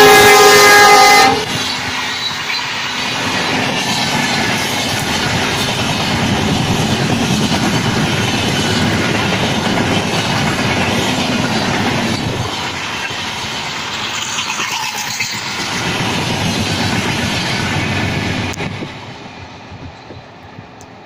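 Air horn of a WDP4D diesel locomotive sounding as it passes, cutting off about a second in. Then the express's coaches roll past with steady, loud wheel noise on the rails, fading away from about two seconds before the end as the train recedes.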